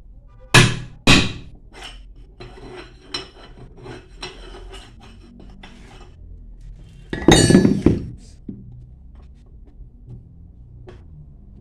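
Metal-on-metal work: two sharp hammer-like blows, then light clinking of metal parts, and a loud metallic clatter about seven seconds in.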